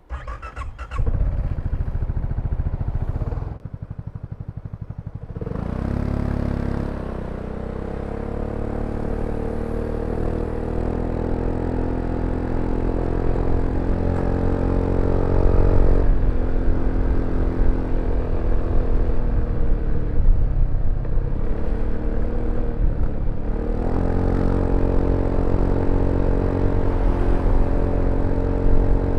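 BMW C400X scooter's single-cylinder engine running on the move. The revs rise about five seconds in as it pulls away, then hold a fairly steady pitch, as a scooter's automatic belt drive keeps them. The pitch drops about halfway through and climbs again later as the throttle is opened.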